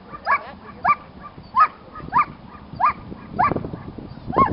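German Shepherd barking steadily at the helper in a Schutzhund bark-and-hold at the blind: about seven sharp barks, evenly spaced, roughly one every half second or so.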